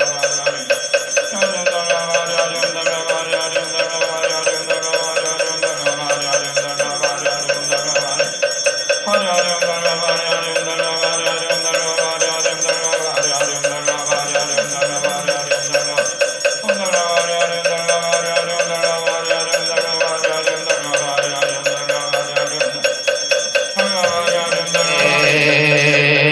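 Buddhist ritual chanting (yeombul): low male voices chanting in long phrases, over a fast steady beat of about three to four strokes a second and continuous bell-like ringing.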